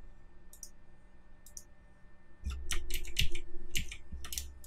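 Computer keyboard clicks: a couple of single clicks, then a quick run of keystrokes from about two and a half seconds in, the undo shortcut Ctrl+Z pressed four times.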